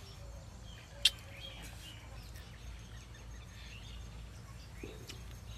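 Birds chirping faintly over a low steady rumble, with one sharp click about a second in.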